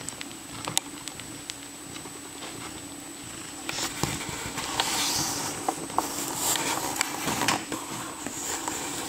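Cats purring in a steady low hum, with small clicks and rustling as the cats and newborn kittens shift against each other on the cushion. The rustling grows louder from about four seconds in.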